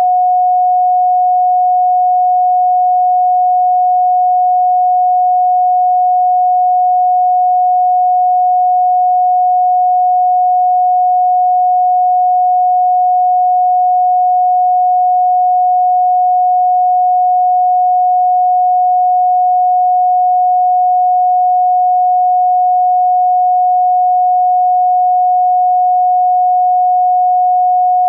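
A pure sine tone at 728.131 Hz, held steady at one pitch and one loudness without a break.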